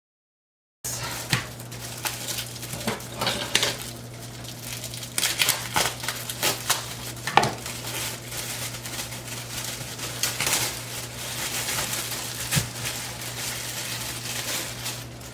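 Kitchen food-prep handling: plastic storage containers and utensils clicking, clattering and rustling on the counter, with two sharper knocks, over a steady low hum.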